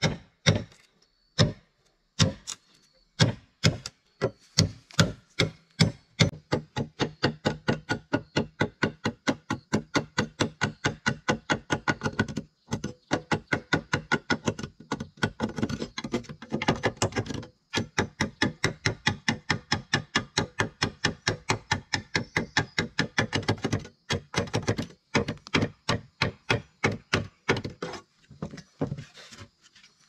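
Machete chopping along the edge of a wooden plank: a fast, steady run of sharp wooden strikes, about three or four a second, slower at first and broken by a few short pauses.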